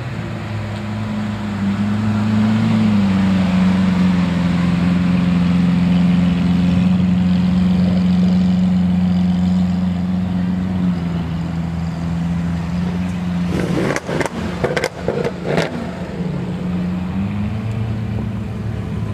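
Car engine running steadily close by. Its pitch steps up about two seconds in and holds there. A little over two thirds of the way through comes a quick cluster of sharp cracks, after which the engine settles back to a lower pitch.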